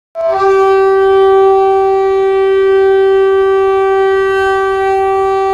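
One long horn blast on a single steady note, starting sharply just after the beginning and held without a break.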